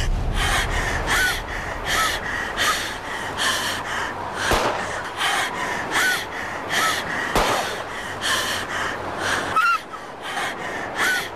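A person breathing fast and hard, panting at about three gasping breaths a second, some breaths carrying a small squeak.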